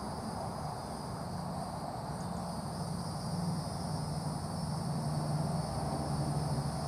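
Steady background hum with a faint, even high-pitched whine; no handling or tool sounds.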